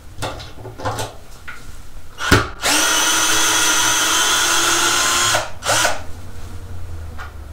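SnapFresh 20V cordless drill with a star bit running steadily for about three seconds, backing a wood screw out of a timber beam. A sharp click comes just before the motor starts, with lighter handling clicks before and after.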